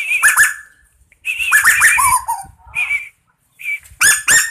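Bird giving short, high, down-hooked peeping calls in several quick bursts with gaps between. A faster, regular run of calls starts near the end.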